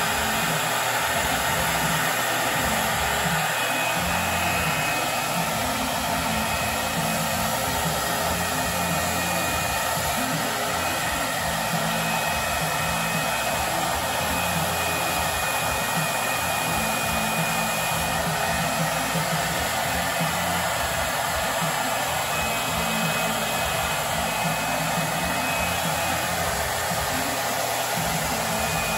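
HVLP turbine paint sprayer running steadily, its blower pushing air through the hose and out of the spray gun as paint is sprayed. It makes an even, unbroken rushing hiss with a low motor hum.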